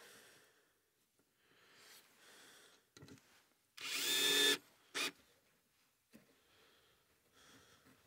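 Cordless drill driving a screw into a wooden board: one run of the motor lasting just under a second, about four seconds in, then a short second pulse of the trigger. Faint handling sounds come before and after.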